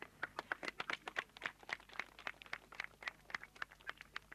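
A small crowd clapping, with individual hand claps distinct in an irregular patter of several a second.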